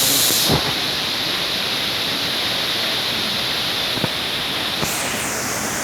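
Steady rush of a large waterfall, an even wash of falling water, with a brief thump about half a second in.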